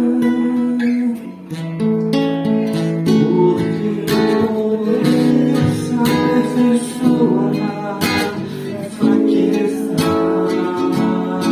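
Acoustic guitar playing an instrumental passage, chords strummed and plucked, with sharp strums about four, five, eight and nine seconds in.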